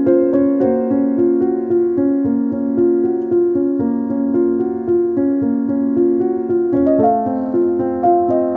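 Background piano music, a steady run of single notes and chords.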